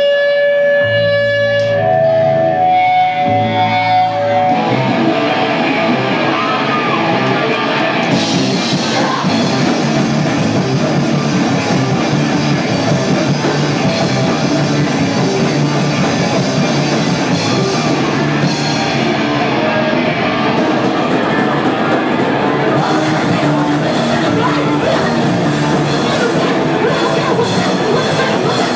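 Loud live rock band with electric guitar, bass and drum kit. It opens with held guitar notes over bass, then about four and a half seconds in the full band crashes in dense and heavy and keeps going.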